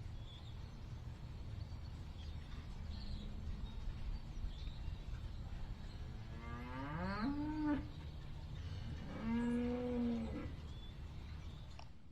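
Cattle mooing twice over a steady low rumble: the first call rises in pitch, the second is held level and is the louder.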